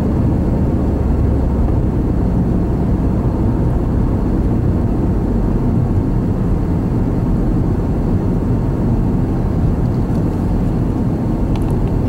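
Steady low rumble of a moving car, heard from inside the cabin while driving.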